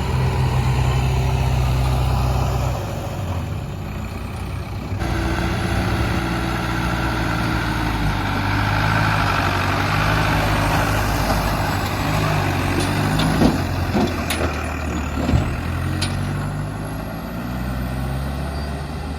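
Heavy diesel engine running steadily, with a few sharp knocks in the last third.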